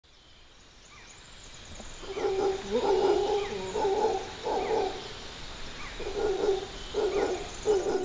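Rainforest wildlife ambience fading in: an animal gives short, low, barking calls in repeated bouts, over a steady high insect hiss and a few faint bird chirps.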